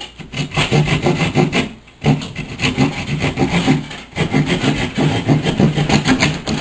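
Loud, rough rubbing and scraping in repeated strokes, breaking off briefly about two seconds in and again about four seconds in.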